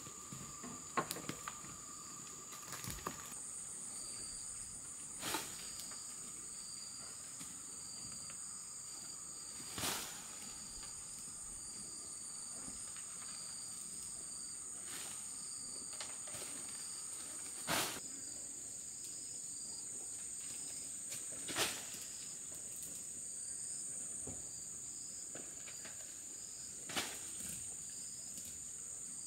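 Steady high-pitched insect chorus, with another insect chirping in short regular pulses. Every few seconds a brief sharp rustle or snap sounds as weeds and moss are pulled off the roof edge by hand.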